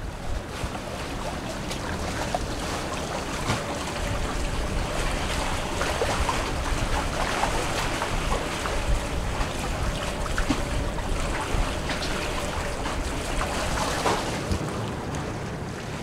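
Water rushing along the hulls of a sailing catamaran underway, with wind noise on the microphone.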